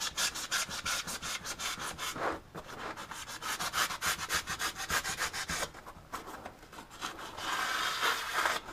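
Sharp straight-edged knife sawing through upholstery foam in quick back-and-forth strokes, filleting a layer off down to the vinyl backing: a soft, rapid rasping, several strokes a second, with a short break about two and a half seconds in.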